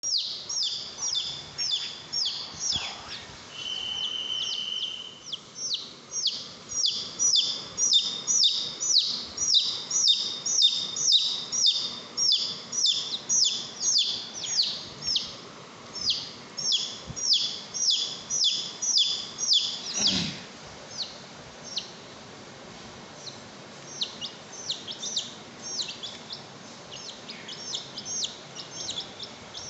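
Baby chicks peeping, a rapid run of high calls that drop in pitch, about two or three a second. After about twenty seconds the peeps thin out and turn quieter and more scattered.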